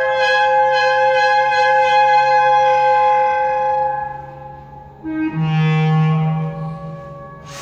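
Clarinet and basset horn playing a long held note that fades away about four seconds in. After a short pause a low note comes in and is held for about a second before dying away.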